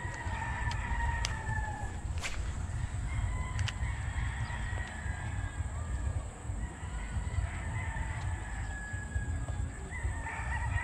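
A rooster crowing again and again: about four long drawn-out calls, each dropping in pitch at the end, over a low rumble, with a few sharp clicks in the first few seconds.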